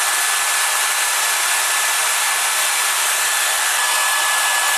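Hairdryer blowing on its full setting: a steady rush of air with a thin, steady whine, used to shrink heat-shrink tubing onto wire connectors.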